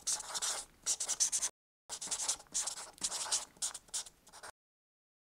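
Rapid scribbling strokes of a pen sketching. The strokes break off for a moment about one and a half seconds in, resume, and stop dead about four and a half seconds in.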